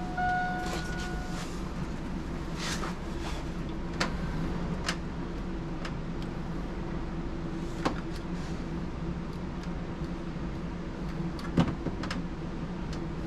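Scattered light clicks and taps from a test light probe and door wiring connector being handled, over a steady low hum. A steady high tone sounds for about the first second and a half, then stops.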